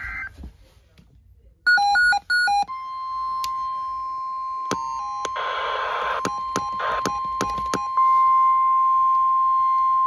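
NOAA Weather Radio alert tone from a weather radio's speaker: three short loud beeps, then a steady single-pitch alarm tone from about three seconds in, announcing a required weekly test. Short key beeps and two brief bursts of static come over it as the radio's buttons are pressed.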